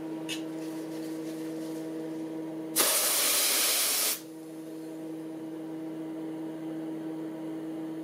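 A short, loud hiss of spray from a hand-held aerosol can, starting abruptly nearly three seconds in and cutting off about a second and a half later. A steady electrical hum from the running bench equipment is heard throughout.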